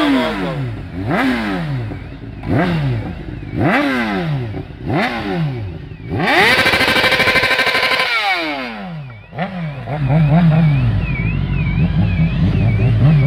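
Honda CBR600RR inline-four through a Yoshimura RS5 exhaust, revved in about five quick throttle blips that rise sharply and fall back. It is then held high for about two seconds, drops away and settles to an uneven idle.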